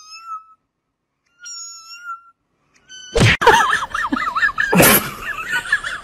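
Two short, steady high-pitched tones, then, about three seconds in, two loud thumps and a high, wavering whine from a small dog tugging at a piece of clothing, running on continuously.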